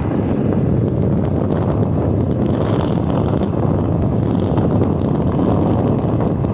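Wind rushing and buffeting over the microphone on an electric bike riding uphill at about 30 mph, as a steady loud rumble.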